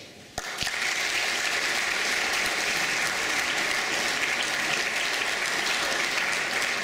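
Audience applauding, a dense steady clapping that starts sharply about half a second in.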